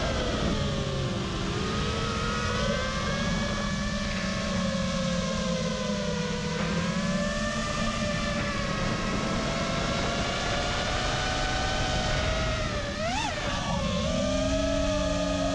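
FPV racing quadcopter's T-Motor F60 Pro II brushless motors whining over wind rush on the onboard camera's microphone. The pitch drifts slowly up and down while GPS return-to-home flies the craft. About 13 seconds in, the whine swoops sharply up and down, then settles at a new steady pitch.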